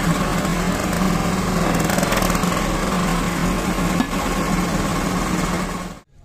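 A small engine-driven machine running steadily and loudly, with a constant low hum under a rough mechanical clatter; it cuts off abruptly near the end.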